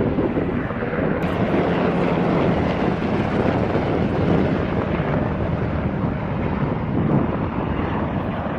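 Aircraft engine noise at an air show, a loud, steady rush without pauses.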